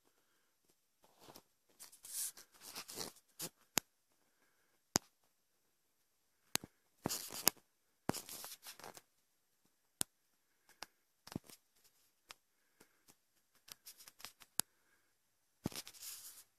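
Footsteps crunching through dry leaf litter and twigs on the forest floor: irregular rustling bursts with a few sharp snaps between them.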